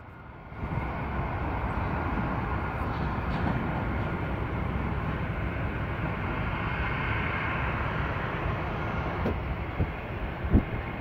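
Twin-engine jet airliner's engines running on the runway: a steady rushing noise with a high whine. A few brief low knocks come near the end.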